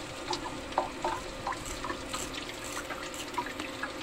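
Hot oil sizzling in deep-frying, with many small irregular crackles and pops over a steady hiss and a low steady hum.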